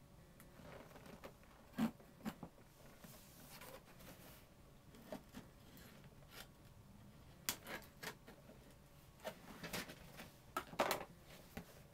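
A small knife cutting and scraping at a cardboard shipping box to open it: irregular short scrapes and clicks, the sharpest about two seconds in and a cluster near the end.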